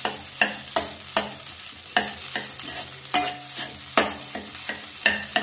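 White plastic spatula scraping and tapping against a non-stick kadai, stirring diced boiled potatoes frying in oil with onion and curry leaves. Strokes come about two or three a second over a steady sizzle.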